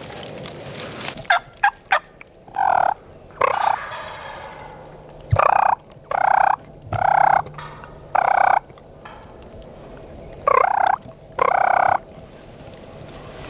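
Wild turkey gobblers gobbling over and over, about eight loud rattling gobbles, each under a second long. A few short sharp notes come just before the first gobble.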